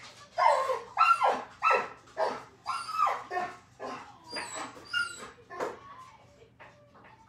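A dog barking in a quick series of short barks, about two or three a second, growing fainter toward the end.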